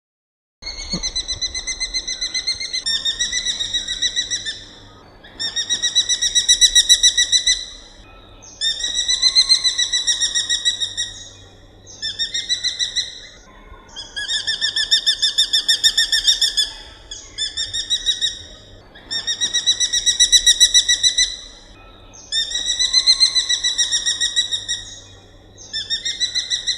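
Alap-alap macan (Oriental hobby) giving a rapid, high chattering call, bout after bout, each about two seconds of fast repeated notes with short pauses between.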